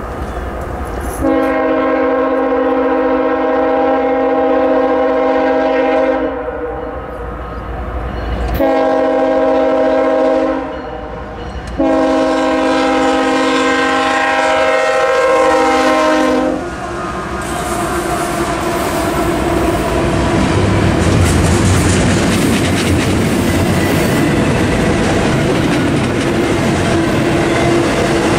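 A CSX GE diesel locomotive's air horn, sounding several notes together, blows three blasts for the crossing: long, short, then long. The locomotive then passes with its engine running, and double-stack intermodal cars roll through, their wheels clacking over the rail joints.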